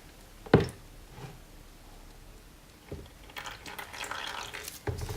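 Murky fork oil dripping into a bucket from a BMW R80 airhead fork, with one sharp knock about half a second in and a couple of softer knocks later.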